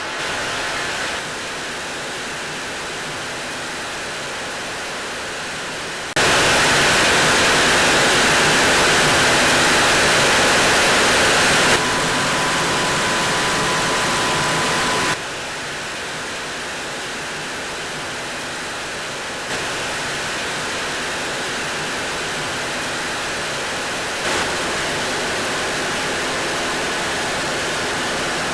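Loud, steady machinery noise in a motor yacht's engine room while the boat is underway: the diesel engines and other machinery running, heard as a dense, even rush with a low hum beneath. The level jumps up or down abruptly several times as the clips change, and a thin steady high tone sounds for a few seconds in the middle.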